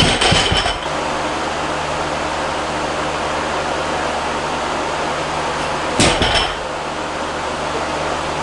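A 140 kg barbell loaded with rubber bumper plates touches down on the lifting platform between reps. Each touchdown is a thud with a metallic clink and ring, once at the start and again about six seconds in, over a steady background hum.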